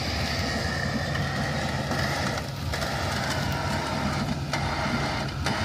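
A 1997 Ford Explorer's engine idling with a steady low hum.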